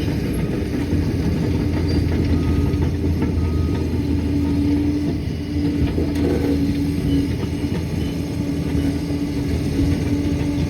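Liebherr 746 crawler dozer's diesel engine running steadily: a low drone with a held hum that does not rise or fall.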